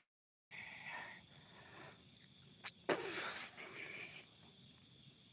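The sound cuts out completely for about half a second at the start. After that there is a faint night-forest background, a click, and a person's short breathy exhale close to the microphone about three seconds in.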